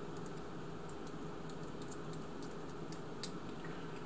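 Faint, irregular light clicks and ticks of a small metal pin and hand tool being handled during gun reassembly, over a steady low hum.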